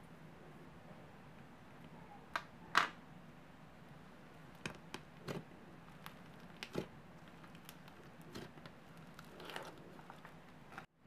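Thick icee slime being pressed and squeezed by hand, giving scattered crackles and pops, the loudest about three seconds in.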